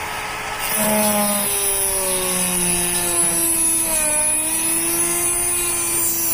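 Dremel rotary tool with an abrasive cut-off disc grinding through a rusted screw head. Under a second in it bites into the metal harder and gets louder, its motor whine sagging a little in pitch under the load.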